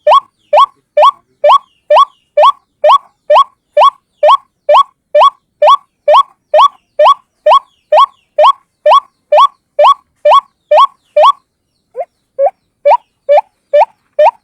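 White-breasted waterhen (ruak-ruak) call from a single bird: a short rising note repeated steadily about twice a second, with a brief break about eleven seconds in before it starts again.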